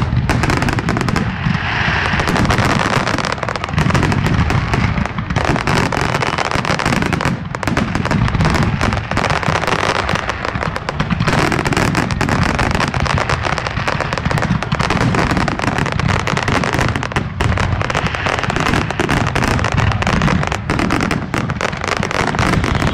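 Aerial fireworks display: a dense, continuous barrage of shell bursts, the bangs overlapping one another with no break.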